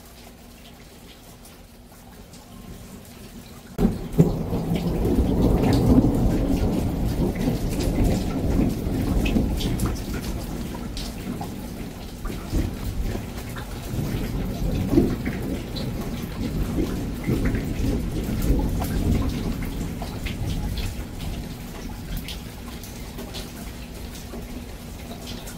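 Thunder: a sudden crack about four seconds in opens into a long low rolling rumble that slowly fades. Steady monsoon rain patters and drips underneath.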